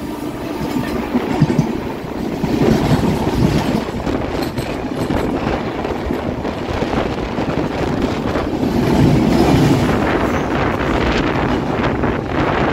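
Two passenger trains crossing at speed on adjacent tracks: the steady rush and rumble of the other train's coaches going past close by, with wheels clacking over rail joints and wind buffeting the microphone.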